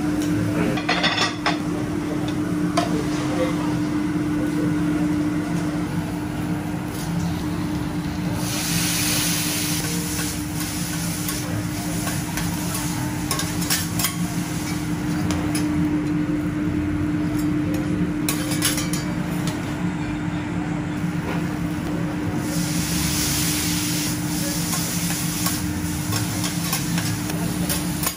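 Metal teppanyaki spatulas scraping and clicking on a hot steel griddle as food sizzles, over a steady low hum. The sizzling swells into a louder hiss about a third of the way in and again about three-quarters through.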